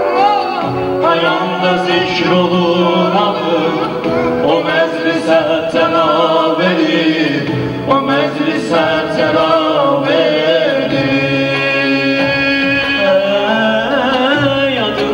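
Male voice singing a melismatic mugam-style religious song (ilahi) through a microphone and PA, with electric keyboard accompaniment.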